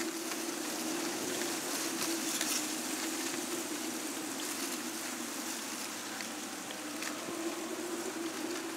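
Case IH 9370 Steiger tractor's 360 hp diesel engine running steadily under load, pulling a disk ripper through tillage, heard as an even drone with a steady hiss over it.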